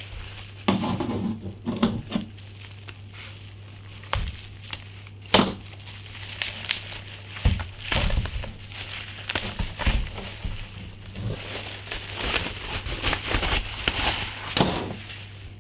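Plastic bubble-wrap sleeve crinkling and crackling as a thin-film solar panel is worked out of it by hand: dense, irregular crackles with a few louder snaps, under a faint steady low hum.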